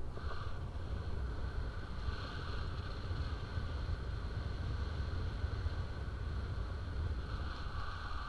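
Wind rushing over the camera microphone during a paraglider flight: a steady, gusty low rumble with a fainter hiss of passing air.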